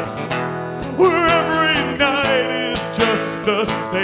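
A man singing long, wavering notes over steadily strummed acoustic guitar.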